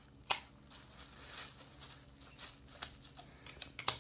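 A plastic card being pressed through a plastic-bagged food log onto a countertop, cutting it into portions. It gives a sharp click about a third of a second in and a louder one near the end, with fainter taps and soft plastic rustling between.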